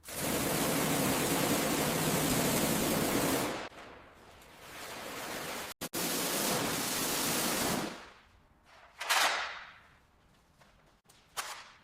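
Pressure-washer water spray hissing in several stretches that stop and start abruptly, with a brief sweeping whoosh about nine seconds in.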